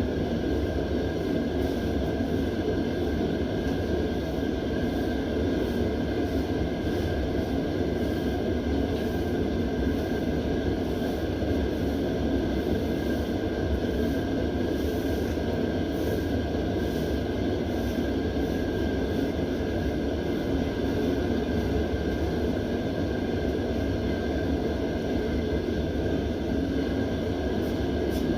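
Mr. Heater Buddy propane heater running, a steady, even hiss and rush from the burner that does not change.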